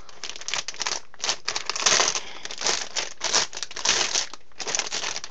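Plastic anti-static bag crinkling in a run of irregular bursts as a motherboard is handled and pulled out of it.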